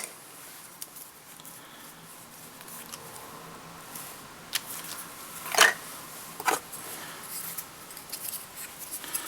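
A few sharp small clicks and taps of fly-tying tools and materials being handled at the bench, the loudest a little past halfway, over a faint steady hum.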